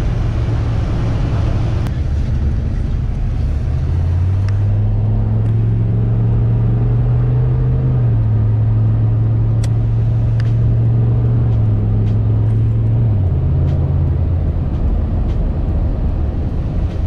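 A 6.5-litre turbo diesel V8 in a 1994 GM pickup, heard from inside the cab while accelerating hard on a newly installed performance tune: a deep, steady drone whose pitch steps down with an upshift about thirteen seconds in.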